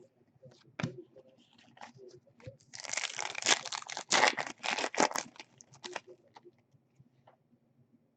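A trading-card pack wrapper being torn open and crinkled: a burst of tearing and crinkling lasting about three seconds in the middle, with a few light clicks and rustles of handling before and after.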